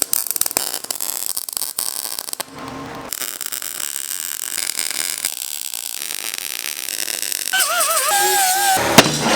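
Pneumatic grinder with an abrasive disc grinding steel: gritty grinding noise with many sharp ticks of contact in the first few seconds, then a steadier grind.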